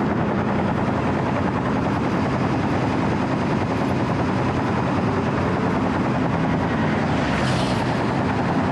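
Steady diesel engine running on a Wirtgen W 120 CFi cold milling machine as it travels, with a vehicle swishing past at freeway speed near the end.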